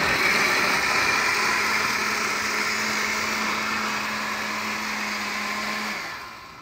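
Red countertop blender running steadily with a steady motor hum, pureeing a thick mix of soaked cornbread, milk, cream, eggs and roasted corn for a bread-pudding base, then winding down and stopping near the end.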